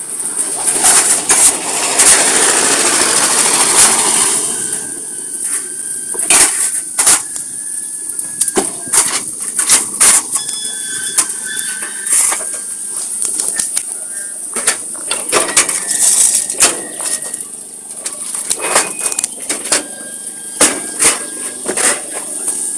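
Brick paving machine at work: concrete pavers clack and knock against each other in irregular sharp strikes over a steady machine hum. A loud rush of noise fills the first four seconds, and a few short high squeaks are scattered through.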